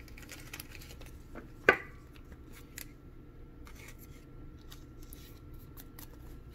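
Trading cards being handled and slid against one another: faint rubbing and light ticks of card stock, with one sharp click nearly two seconds in.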